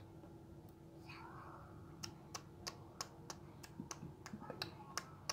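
Faint, evenly spaced clicking, about three clicks a second, starting about two seconds in, over a low steady hum.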